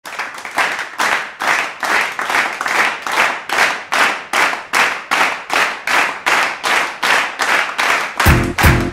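Hand clapping in a steady, even rhythm of about two to three claps a second. Music with a pounding bass line comes in near the end.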